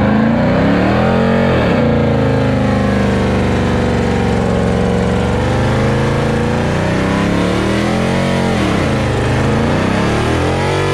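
Dodge Charger's engine held at high revs in a burnout, its rear tyres spinning on the pavement and throwing smoke. The revs dip and climb back a few times, once about a second and a half in and twice near the end.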